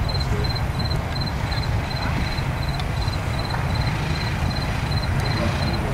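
Outdoor background: a steady low rumble, with a faint high insect-like chirp repeating about three times a second.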